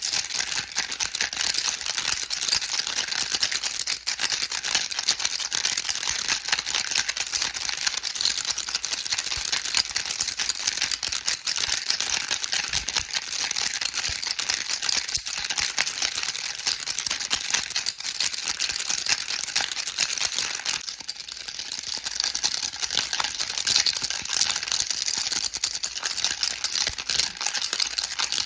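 Baby rattle shaken continuously: a dense stream of small hard clicks, easing briefly about 21 seconds in.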